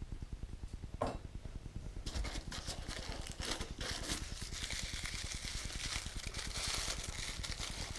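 Packaging rustling and crinkling, with small clicks and taps, as model crane parts are handled and unwrapped; it starts about two seconds in and goes on to the end.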